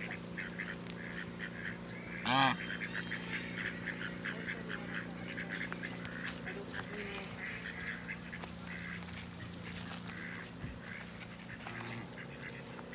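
Domestic geese calling: one loud honk about two seconds in, followed by a steady run of short, soft calls.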